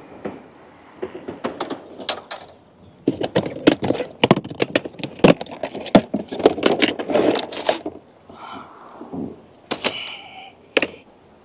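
Fishing tackle being rummaged through in a tackle box, close to the microphone: a rapid run of clicks, knocks and rattles, densest in the middle, with two sharp knocks near the end.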